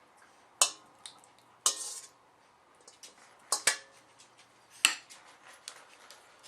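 A utensil clinking and knocking against dishes as sauce is scooped and poured onto a casserole. There are about five sharp clinks, some with a short ring, and lighter taps between them.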